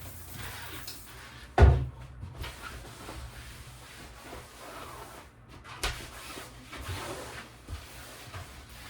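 A heavy thump about one and a half seconds in, then a lighter, sharper knock a few seconds later, with quieter rustling and handling noises between.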